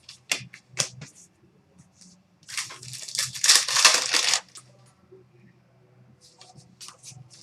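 A foil trading-card pack being torn open, with about two seconds of crackly tearing and crinkling of the wrapper in the middle. A few sharp clicks come before it and light ticks near the end.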